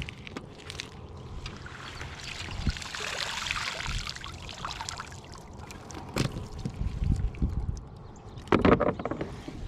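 Water splashing and trickling around a kayak, with scattered knocks against the hull. A stretch of streaming water in the middle and a louder splashy burst near the end.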